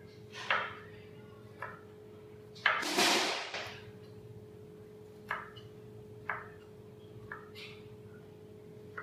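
A knife cutting the rind off a whole pineapple on a cutting board: a string of short, separate cutting strokes, the loudest a longer slice lasting about a second, about three seconds in. A steady hum runs underneath.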